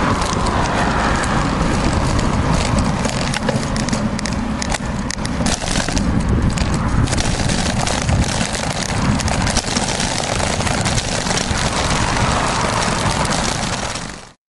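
Continuous loud rumble and rushing noise from a bicycle-mounted camera riding a rough, poorly surfaced cycle path, with many small knocks and rattles from the bumps.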